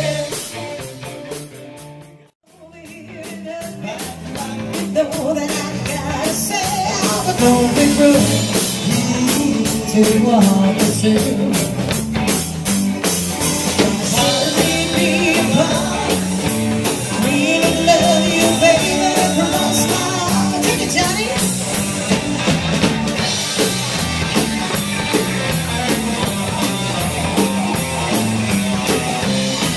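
Live rock band playing with electric guitar, drum kit and singing. The music dips almost to silence about two seconds in, then builds back up to a steady drum beat under guitar and vocals.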